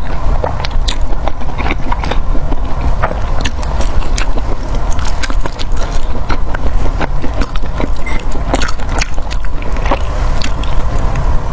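Close-miked eating: a person biting and chewing food, with many short wet mouth clicks over a steady low rumble.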